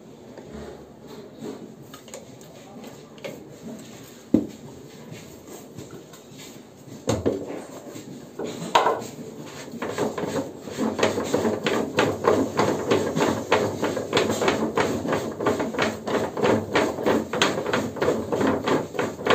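Hand and tool work on a PVC butterfly valve and its flange joint: a sharp knock about four seconds in and another about seven seconds in, then from about ten seconds a steady run of quick clicks, about three a second.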